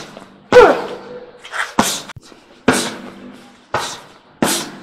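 Strikes landing on handheld focus mitts in a knee-strike drill, five sharp slaps about a second apart. The first comes with a short cry that falls in pitch.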